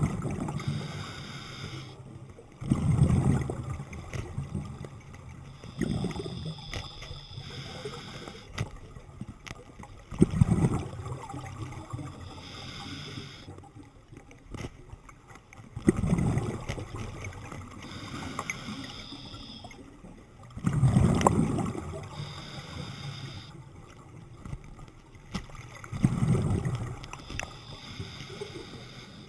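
Scuba diver breathing through a regulator underwater: a gurgling rush of exhaled bubbles about every five seconds, with a fainter hiss on each inhale in between.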